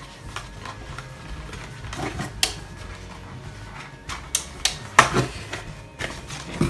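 Unpacking noises: a plastic DVR unit being lifted out of its styrofoam packing, with scattered knocks and scrapes of plastic, foam and cardboard. Most of the sharp knocks come in the second half.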